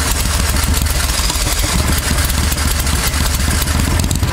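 Briggs & Stratton V-twin engine of a 1992 Club Car golf cart running loud and steady through open header pipes, just fired up after sitting for six months.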